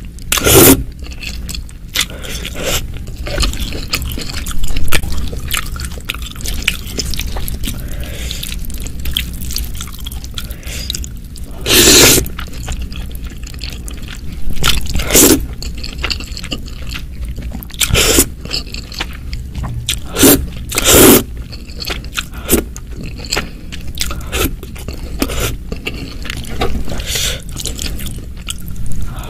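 Irregular scraping noises, a run of short rasps with several louder, longer scrapes among them, over a steady low rumble.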